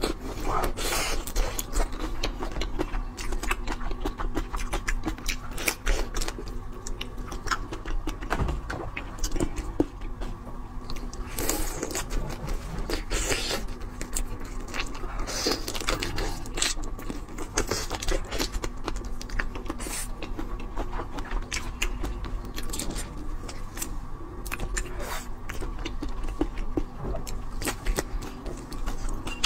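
Close-miked chewing and biting on whole shrimp, with irregular crisp crunches as the shells break.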